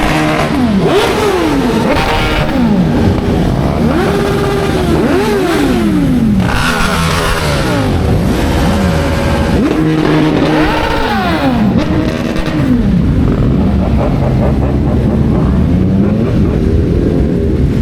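Motorcycle engines revving and accelerating through the gears, their pitch climbing and dropping again and again, with several bikes overlapping.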